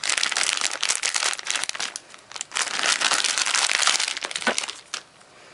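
Clear plastic packaging bag crinkling as hands handle it, in two spells with a short pause about two seconds in, dying away near the end.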